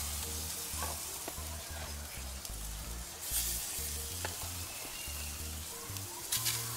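Raw bone-in chicken breasts sizzling as they are laid on a hot grill grate. The sizzle swells about three seconds in and again near the end, as further breasts go down. Background music's bass notes run underneath.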